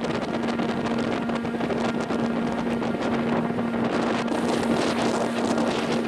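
Blizzard wind buffeting the microphone as a loud, even rush, with a steady low hum underneath.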